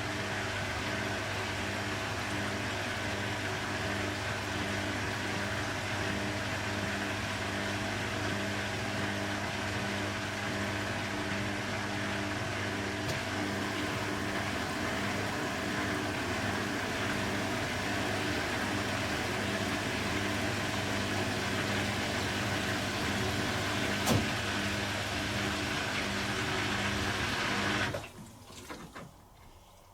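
Beko WTB841R2W washing machine running with a steady mechanical hum and one sharp click; the hum cuts off suddenly near the end.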